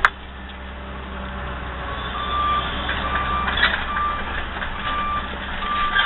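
A backup alarm beeping about once a second, each beep about half a second long, starting about two seconds in, over the steady low running of an excavator's diesel engine. A sharp click right at the start.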